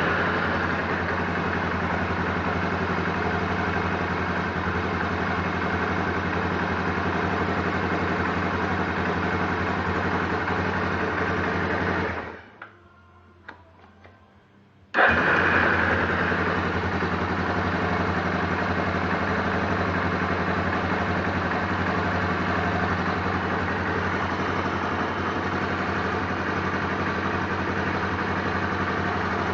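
2008 Yamaha Raptor 350 ATV's single-cylinder four-stroke engine idling steadily, shutting off about twelve seconds in with a few faint knocks as it stops, then starting again a few seconds later and settling back into a steady idle. The owner hears a small click at start-up and a knock at shutdown from this fully rebuilt engine, which otherwise runs quiet and smooth.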